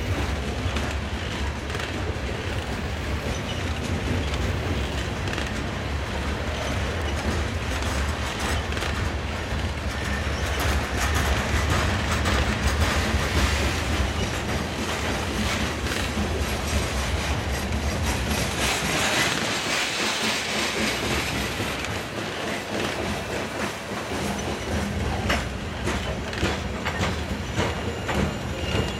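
Loaded covered hopper cars of a freight train rolling past, their steel wheels clicking over the rail joints over a steady rumble. The low rumble eases about two-thirds of the way through as the end of the train nears.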